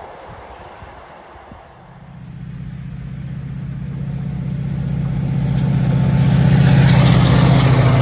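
Diesel train approaching through the junction. Its engine sets up a steady low drone that starts about two seconds in and grows steadily louder, peaking near the end.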